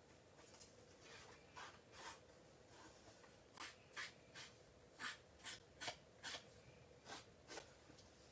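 Faint, quick swishes of a sponge rubbing gold leaf flakes onto the edge of a card, in irregular strokes that come more often in the second half.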